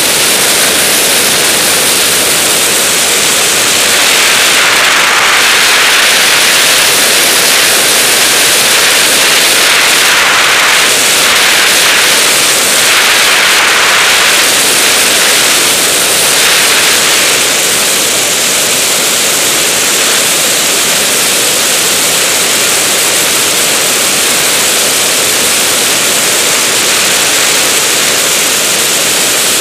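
Steady rushing wind noise from air streaming past a camera mounted on a DG-100 sailplane in gliding flight, with no engine. The hiss grows louder and brighter from about four seconds in until about seventeen seconds in, then settles back.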